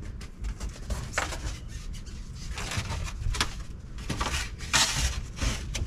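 Items being moved around in a camper's storage cabinet: irregular rustling of plastic, with light knocks and clicks as things are lifted and set down.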